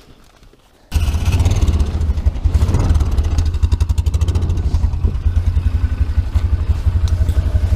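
Side-by-side UTV engine suddenly coming to life about a second in and running loudly and steadily, with a rapid, even low pulsing.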